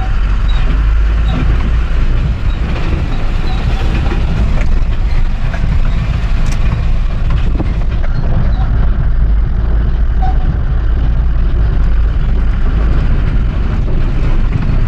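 Eicher Terra 16 tipper truck's diesel engine running with a steady low rumble while driving on a rough dirt road, heard from inside the cab, with scattered knocks and rattles from the bumpy track.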